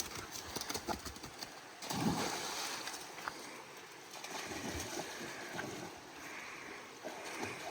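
A dog wading and splashing in a shallow brook, with scattered knocks and splashes and a louder surge of water about two seconds in.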